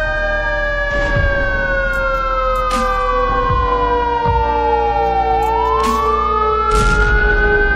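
Emergency siren wailing in slow sweeps. It rises to a peak about a second in, falls for about four seconds, then rises again near the end, with a lower tone sliding slowly down beneath it. Several sharp cracks sound now and then.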